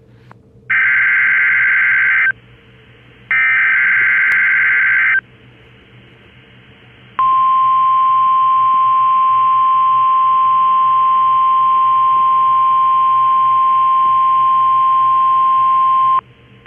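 Emergency Alert System SAME header: two buzzy bursts of digital data tones, each just under two seconds and about a second apart, followed by about nine seconds of the steady single-pitch NOAA Weather Radio warning alarm tone, which cuts off abruptly. Together they announce a tornado watch alert.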